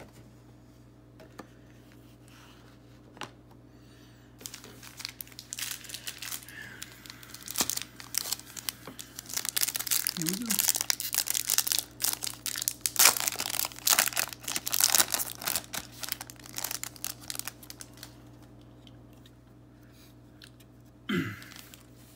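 The foil wrapper of a Topps Chrome baseball card pack is torn open and crinkled by hand. There is a dense run of crackling and tearing from about four seconds in, which dies away a few seconds before the end.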